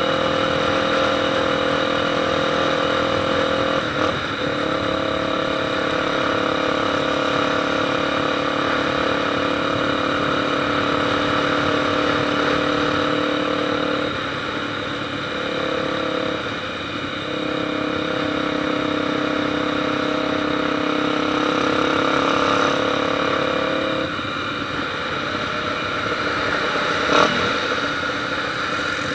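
Motorcycle engine running at a steady speed, its even note breaking off briefly a few times and settling again. A sharp click comes near the end.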